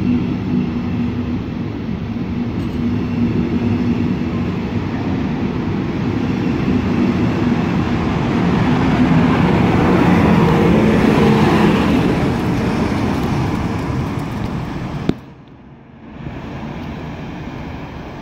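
Double-deck regional train pulling out: wheels and running gear clattering past, with the electric locomotive's motor hum growing loudest as it passes close by about ten seconds in. A sudden cut about fifteen seconds in leaves the train's sound fainter and farther off.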